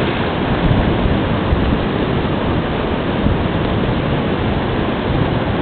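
Mountain stream water rushing over rocks: a loud, steady noise.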